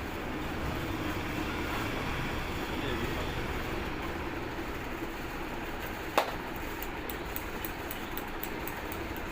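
Steady background rumble with a low hum. About six seconds in there is a single sharp crack, the loudest sound, followed by faint quick ticking, about three ticks a second.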